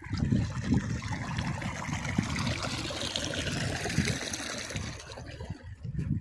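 Water trickling and flowing in a small stream, with an uneven low rumble underneath.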